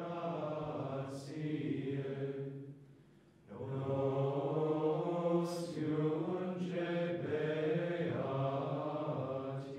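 Dominican friars' plainchant: men's voices chanting in unison at a fairly steady pitch, in two phrases with a short breath about three seconds in.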